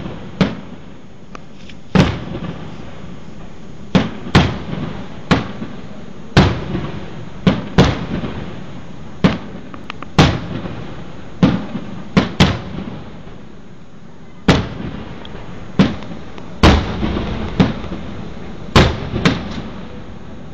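Aerial firework shells bursting in a rapid, irregular series of about twenty booms, sometimes two in quick succession. Each boom trails off in a rolling echo.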